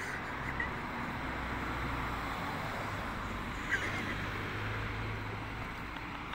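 Town-street ambience: a steady hiss of traffic and wind with a low hum, and a few brief high chirps, the sharpest nearly four seconds in.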